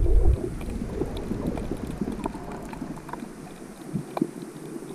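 Muffled underwater sound through a camera's waterproof housing: a heavy low rumble of water against the housing in the first moment, then a steadier dull wash with scattered faint clicks and crackles.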